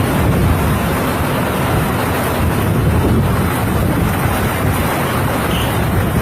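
Strong wind buffeting the microphone: a loud, steady rushing noise, heaviest in the low end, with irregular gusty flutter.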